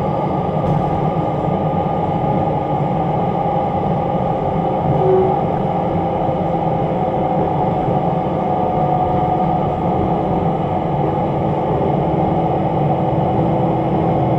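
Diesel railbus running slowly, heard from inside the passenger cabin: a steady hum of engine and running gear, with no change through the stretch.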